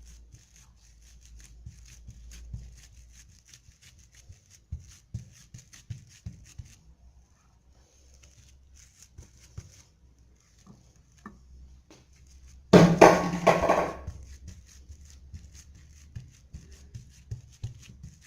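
Hands handling pieces of cooked chicken breast on plastic food wrap on a table, with soft pats, taps and rustles as they are laid out and pressed flat. About thirteen seconds in there is one loud, brief pitched sound lasting about a second.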